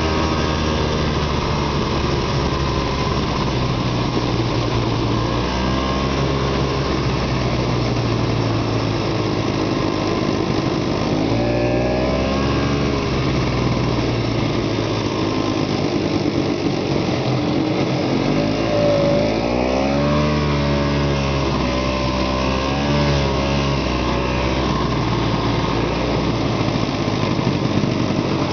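Arctic Cat Panther snowmobile running along a trail, heard from the rider's seat. The engine's pitch rises and falls several times as the throttle is opened and eased, over a steady rushing noise.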